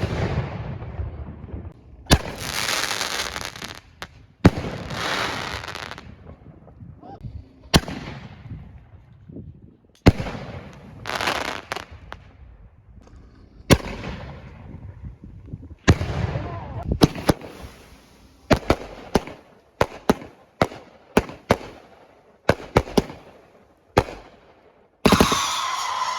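Consumer fireworks going off: a series of loud, sharp bangs, each followed by an echoing tail, with hissing stretches of launches and burning effects in between. In the second half the bangs come faster, several a second at times.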